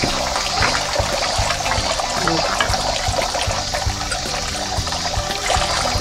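Water streaming from bamboo spouts into a stone shrine purification basin, a steady splashing trickle. Background music with a steady beat plays under it.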